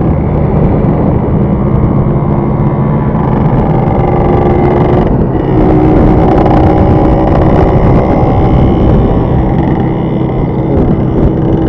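A motor vehicle running at speed: steady engine and road noise, with the engine's pitch changing about five seconds in.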